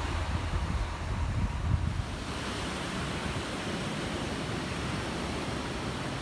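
Ocean surf washing steadily on a beach, with wind buffeting the microphone for the first couple of seconds.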